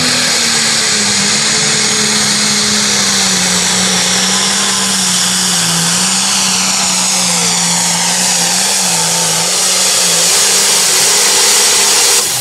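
Turbocharged International Harvester diesel pulling tractor at full throttle dragging the sled, loud and steady with a high whine over the engine. The engine's pitch sags slowly as the load builds.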